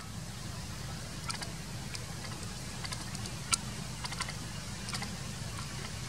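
Scattered sharp clicks and ticks at irregular intervals, the loudest about three and a half seconds in, over a steady low hum.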